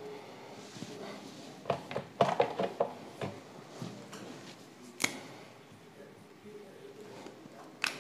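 Whiteboard markers being handled and used on a whiteboard: a short run of small taps and clicks about two seconds in, then one sharp click about five seconds in.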